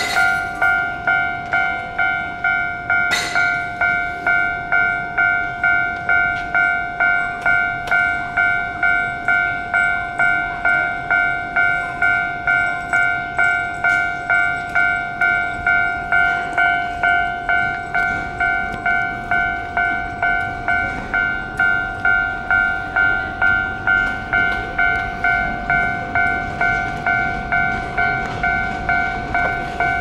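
Japanese railway level-crossing warning bell ringing an even two-tone electronic ding about twice a second, the signal that the barriers are down for a train. A single sharp click about three seconds in.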